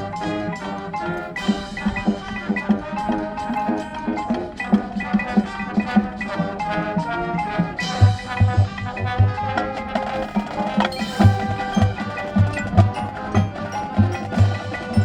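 High school marching band playing its competition field show: sustained wind and brass chords over a drumline and front-ensemble percussion. Low drum hits come in a quick repeating pattern from about halfway through.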